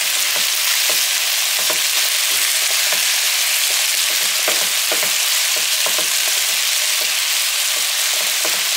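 Garlic, onion, celery, carrots and tomatoes frying in olive oil: a steady sizzle with frequent small crackles and pops.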